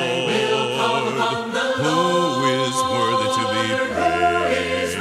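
Background music: a worship song with several voices holding long sung notes between lyric lines, a new line beginning near the end.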